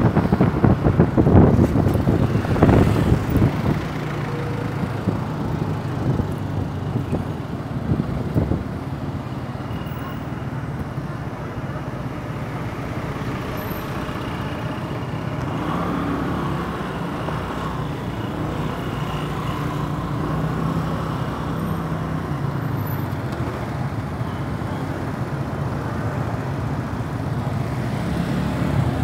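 Small scooter engine running under way through city traffic, with road and traffic noise around it. For the first few seconds wind buffets the microphone heavily.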